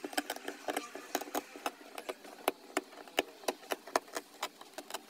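Old cotton lining being pulled off the wooden inside of a travel chest, where it is stuck on with flour-and-water paste, giving a run of sharp, irregular crackles and ticks, about three or four a second.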